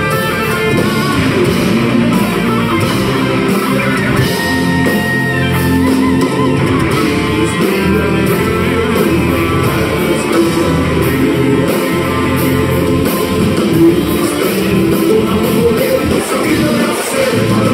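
Live heavy metal band playing loud through a hall PA: distorted electric guitars, bass and a drum kit.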